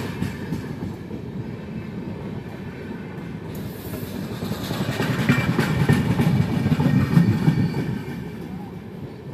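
Passenger coaches of an express train passing at speed: a steady rumble of wheels on rail with clicks as the wheels cross rail joints. It swells about halfway through and fades near the end as the tail of the train draws away.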